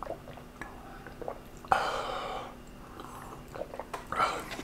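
A person swallowing a drink from a glass close to the microphone, with small mouth and throat clicks, then a loud breathy exhale of relief about two seconds in and a softer breath near the end.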